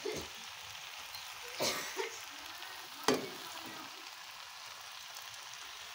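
Chowmein noodles sizzling in a metal pan as they are stir-fried, with a perforated metal spatula stirring through them. The spatula knocks against the pan twice, about one and a half and three seconds in, the second knock the louder.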